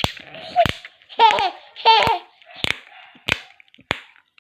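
Chewing gum being snapped, a series of sharp cracks about every half second to second, with a baby laughing in between.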